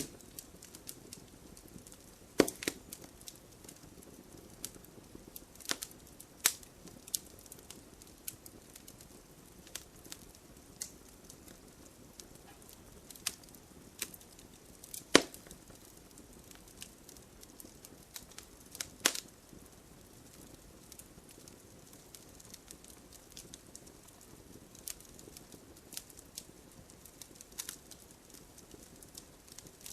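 Wood fire burning in a fireplace, logs crackling with irregular sharp pops, a few of them louder, over a soft steady rush of flame.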